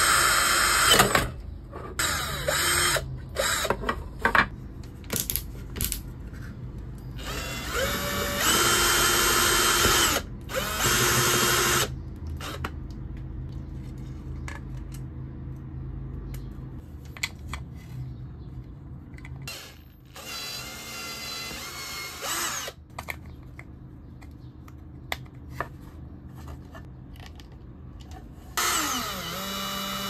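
Cordless drill run in a series of short bursts, boring holes through a hard plastic joystick housing. Each burst starts with a rising motor whine, with clicks and knocks of handling between bursts. Near the end a step drill bit cuts into a small metal part.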